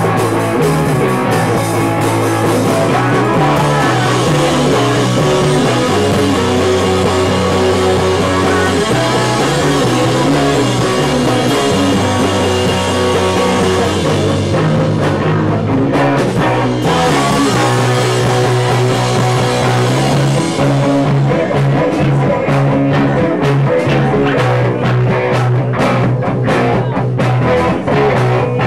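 Punk rock band playing live and loud: electric guitar, electric bass and drum kit together, the bass line moving between notes every second or two and the drums hitting harder in the last third.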